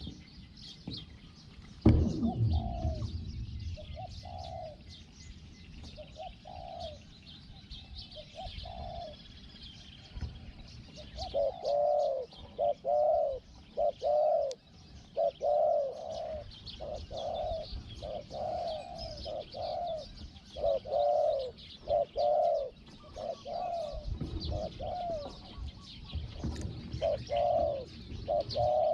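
Spotted doves cooing over and over, a long run of short low hooting notes that grows louder about a third of the way in, with smaller birds chirping higher. A sudden thump about two seconds in is the loudest sound.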